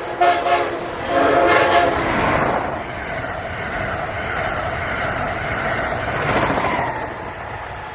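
Locomotive air horn sounding a chord in two blasts, one ending just after the start and a second of about a second starting about a second in. The steady rumble and clatter of the train on the rails follows.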